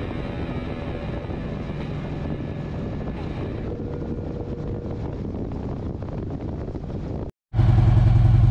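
Motorcycle riding along a road, its engine mixed with wind rushing over the microphone. After a short cut to silence near the end, a motorcycle engine runs steadily and much louder and closer.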